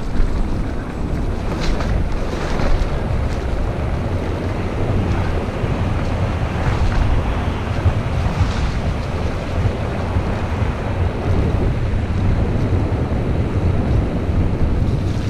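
Wind buffeting the microphone over the rumble of tyres rolling fast on a dirt trail, with a few short knocks and rattles from the bike near the start.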